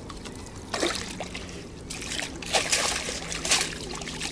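Water splashing and trickling as a landing net is lowered and worked in shallow water to let a carp swim out. Irregular splashes, a louder one a little under a second in and a busier stretch in the second half.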